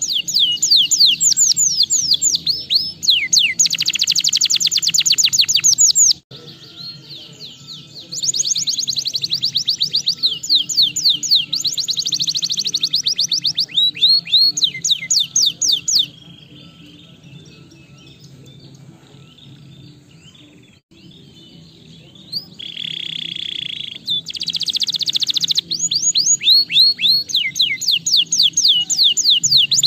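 Domestic canary singing in long runs of fast repeated notes and trills, broken by two pauses, with a short harsh buzzing phrase past the middle. A low steady hum runs underneath.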